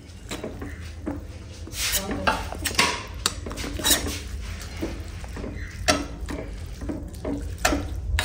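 Metal ladle stirring noodles in broth in a kadhai, with irregular clinks and scrapes against the pan about every half second to a second, over a low steady rumble.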